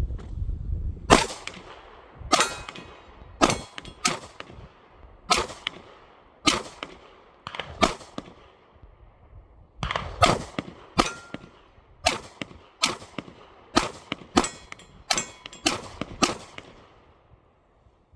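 Glock 29 10mm Auto pistol firing FMJ rounds, about eighteen shots in two quick strings with a pause of about two seconds about halfway. Each shot leaves a short fading echo.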